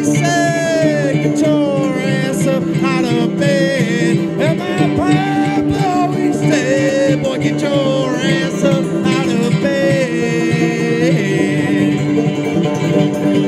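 Live bluegrass-style instrumental by a string duo: a fiddle playing a sliding, gliding melody over steady plucked-string accompaniment.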